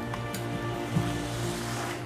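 Background music with steady held notes. Twice a metal ladle clicks faintly against the stainless pan as the chicken curry is stirred.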